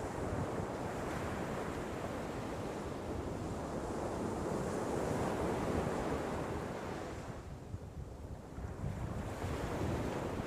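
Ocean surf: waves washing in and out in slow swells, building to a peak about halfway through, easing off briefly, then rising again with the next wave near the end.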